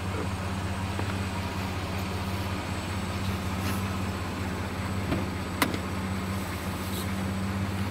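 Pickup truck engine idling steadily with a low hum, and a sharp click about three-quarters of the way through as the passenger door is opened.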